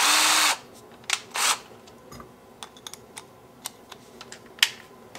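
A cordless drill runs briefly at the start: a half-second whir with a ratcheting buzz as its keyless chuck spins. A second short ratcheting burst follows about a second and a half in, then scattered light clicks and taps of the spade bit and chuck being handled.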